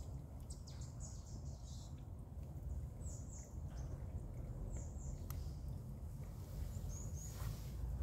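Stream water trickling and splashing down over icicles into a partly frozen pool, a steady low rush with short, high chirps now and then.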